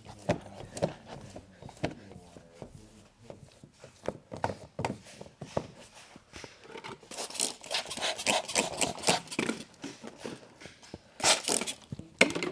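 Plastic squeegee scraping over wet paint protection film on a truck door panel in many quick, short strokes, thickening into a dense run in the middle, with one louder burst near the end.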